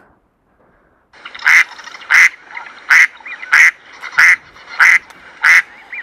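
A duck quacking in a steady series: seven loud, harsh quacks about two-thirds of a second apart, starting about a second and a half in.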